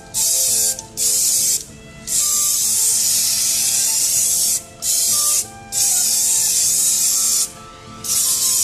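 Aerosol spray can of rubber paint hissing as it sprays a coat onto a car wheel, in about six long bursts with short pauses between them.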